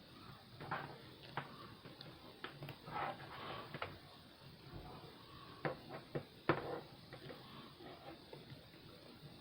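Plastic action figure and its weapon accessory being handled and posed: scattered small clicks and taps of plastic parts, the sharpest about six and a half seconds in.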